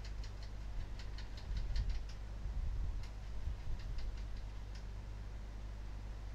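Light, sharp clicks coming in irregular clusters of a few at a time, over a steady low hum.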